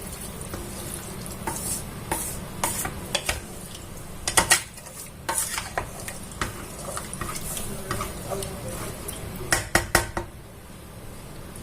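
A spoon stirring rice and water in a pressure cooker pot, scraping and knocking against the sides in an irregular rhythm, with louder clusters of knocks about four seconds in and again near ten seconds.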